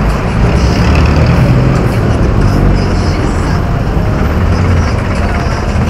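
Loud, steady wind rumble on the microphone of a moving fat bike.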